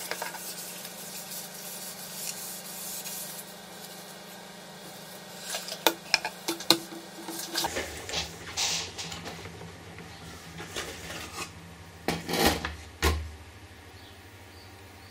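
A paper tissue rubbing over a plastic instrument-cluster bezel with chrome rings for the first few seconds. Then come scattered light clicks and knocks as the bezel and a screwdriver are set down and handled on a table.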